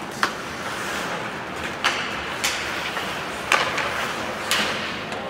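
Ice hockey play on a rink: about five sharp clacks of sticks and puck, spread across a few seconds, over a steady hiss of skates on the ice.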